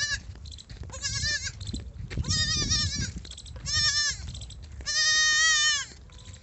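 Goat bleating four times in wavering calls, the last held longest, near the end.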